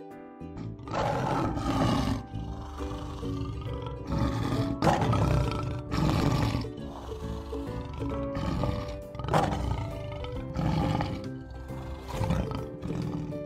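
Lion roaring over and over, one roar every second or two, with light background music beneath.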